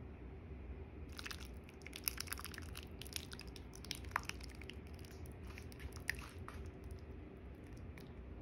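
Faint clicks and small wet taps as thick sauce is poured and spooned over a plate of spaghetti, scattered through the middle of the stretch over a low steady hum.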